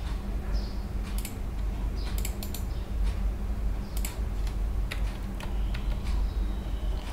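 Scattered clicks of a computer mouse and keyboard, a few of them in a quick cluster about two seconds in, over a steady low hum.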